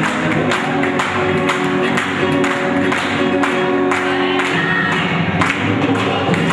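A group of voices singing a song together over a steady percussive beat of about two strokes a second.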